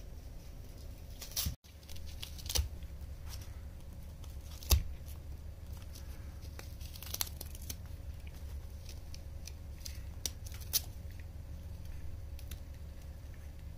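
Cat tearing at a shredded corrugated cardboard scratcher with its teeth and claws: irregular ripping and crackling of cardboard, with a few sharper snaps.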